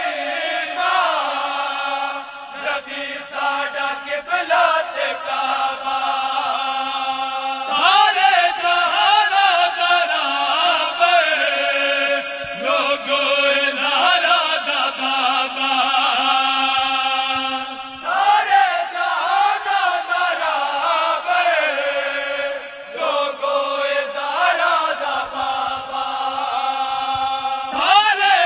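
Unaccompanied men's group chanting a Punjabi devotional kalaam (naat) in unison. It moves in long held notes that change pitch now and then.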